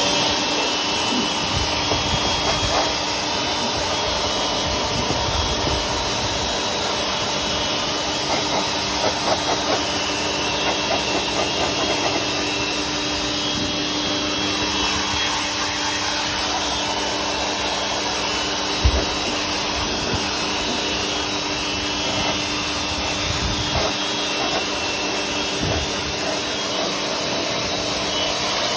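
A machine running steadily with a loud hiss, with a few light knocks and one sharp knock about two-thirds of the way through.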